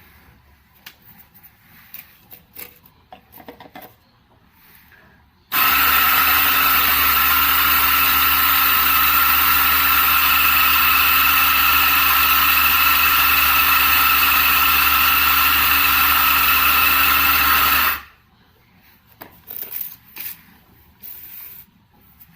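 RACCEA JX650 coffee grinder with 74 mm burrs running for about twelve seconds: a loud, steady motor whine with several steady tones that starts abruptly and cuts off sharply. Light clicks and knocks come before and after it.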